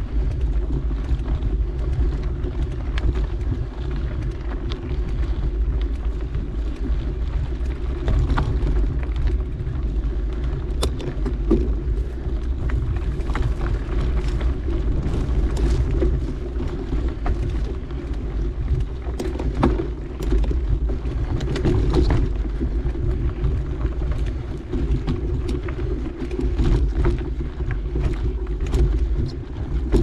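Mountain bike riding along a dirt trail: a steady low rumble of tyres and frame on the camera mount, with scattered clicks and rattles.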